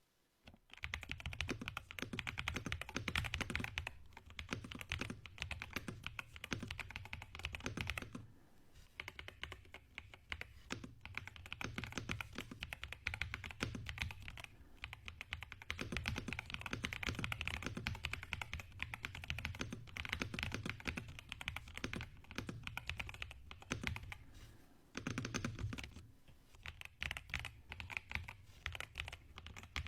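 Typing on a MAGEGEE LIGHT100 mechanical keyboard: a fast, steady run of keystrokes, a sound the maker calls super creamy, pausing briefly twice.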